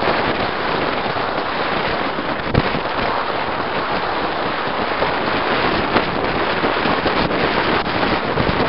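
Wind on the microphone: a steady, loud rushing noise with scattered crackles.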